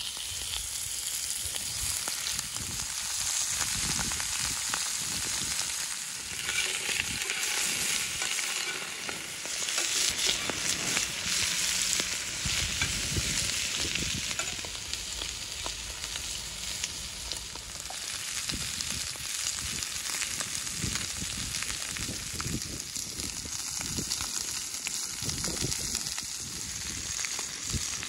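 Chicken gizzards sizzling in hot oil in a frying pan as they are dropped in, growing louder once the pan is full. A metal fork stirs them, scraping and clicking against the pan.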